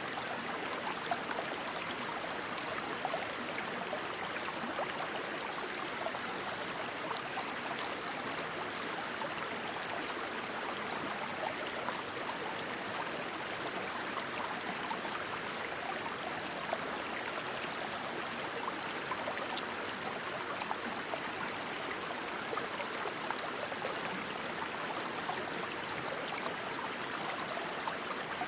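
Rushing stream water running steadily, with short high-pitched chirps every second or so and a quick chattering trill about ten seconds in.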